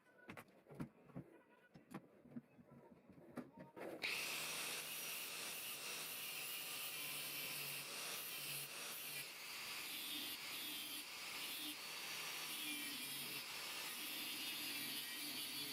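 A few light taps and clicks, then about four seconds in a steady abrasive grinding noise starts and keeps going. It is a power tool working the rust off the old hammer.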